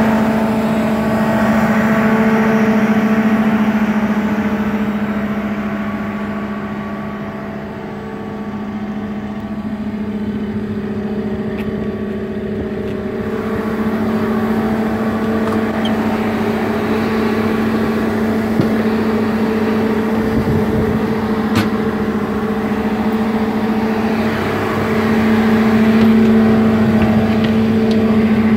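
Sherp N amphibious ATV's diesel engine idling with its radiator cooling fan running, a steady hum that fades a little partway through and then comes back. A few faint clicks sound over it.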